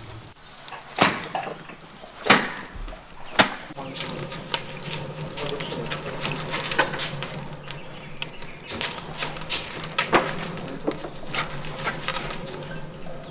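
Wood fire in a cauldron stove: three sharp cracks in the first few seconds, then from about four seconds in a steady low rumble of burning with irregular crackling pops.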